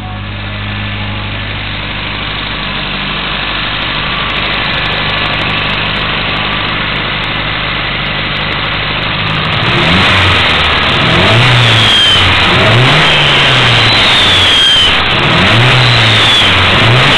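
Turbocharged car engine idling steadily, then revved about five times in quick succession from about ten seconds in; each blip is followed by a faint high falling whistle.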